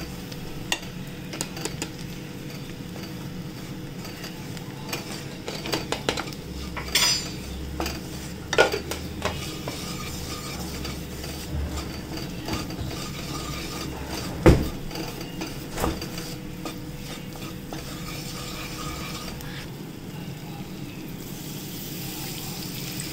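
A spatula stirring and scraping flour and butter in a non-stick pan over a steady sizzle, cooking a roux for white sauce, with irregular knocks of the spatula against the pan, the loudest about two-thirds of the way through. Near the end milk is poured into the pan.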